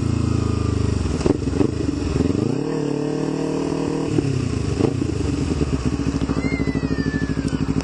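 Kawasaki Ninja 300 parallel-twin engine at low road speed. It revs up briefly about two and a half seconds in, drops back near four seconds, then settles into a steady, even low running note.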